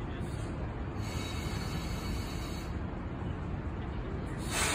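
1930 Peter Witt streetcar rolling slowly toward the listener with a steady low rumble, a hiss rising about a second in and fading, then a stronger hiss starting suddenly near the end.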